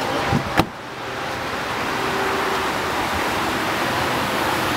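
A single sharp knock about half a second in, then a steady rushing hiss of wind on the microphone.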